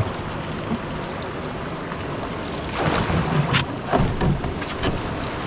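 Rushing whitewater of a river rapid as a canoe runs toward a falls, a steady wash of water noise. Several sharp paddle strokes splash about three to four and a half seconds in.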